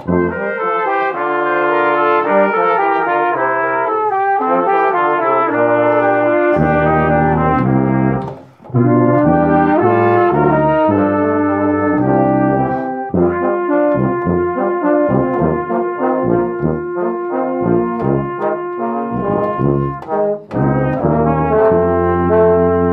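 Live brass ensemble playing a piece in several parts, with held chords, a brief break about eight seconds in, then a stretch of short detached notes over a moving low line, and sustained chords again near the end.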